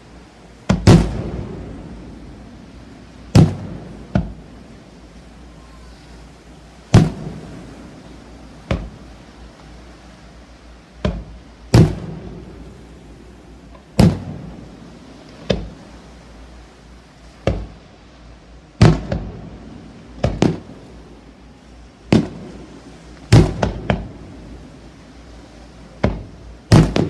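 Aerial firework shells bursting overhead: a string of about twenty sharp booms, one every second or two and sometimes in quick clusters, each trailing off in an echo.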